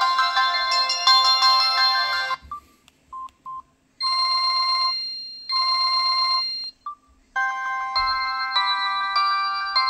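Preloaded ringtones on a Samsung SGH-T249 cell phone. One melodic ringtone ends after about two seconds, and a couple of short beeps follow. Next comes a ringing pattern played twice, then another short beep, and a new melodic ringtone begins about halfway through.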